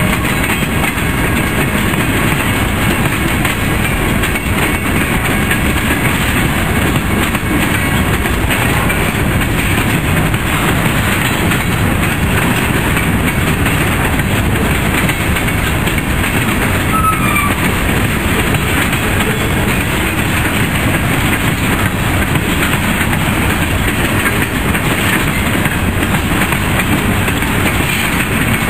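Freight cars of a manifest train rolling past: a steady rumble and clatter of steel wheels on rail, with a brief high squeal about halfway through.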